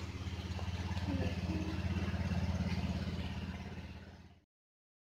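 Honda Vario 125 scooter's single-cylinder engine idling steadily, running again after its rat-chewed side-stand switch wire was spliced. The sound fades out near the end.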